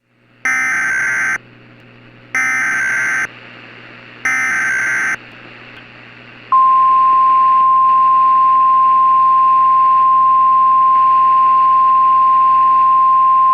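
Emergency Alert System SAME header data bursts, three of them about a second long each, then about six and a half seconds in the NOAA Weather Radio 1050 Hz warning alarm tone, one steady high tone, over faint radio hiss. Together they signal that an emergency alert is about to be broadcast.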